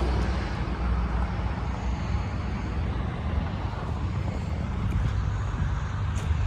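Heavy Scania truck's diesel engine running, a steady low rumble.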